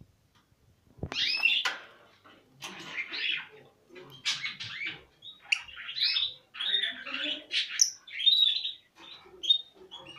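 Fischer's lovebirds chattering: bursts of rapid, high chirps and squeaks, starting about a second in.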